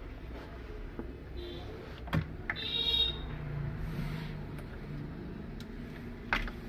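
A steady low hum runs under hands handling the wiring and belt of an alternator-and-motor rig. There is a sharp click about two seconds in, a short high squeak a moment later, and another click near the end.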